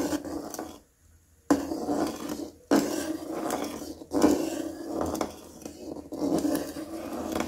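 A metal spoon scraping and knocking in a kadhai as jaggery water and oil are stirred while being warmed. It comes in short stretches with abrupt breaks, one fully silent for about half a second a second in.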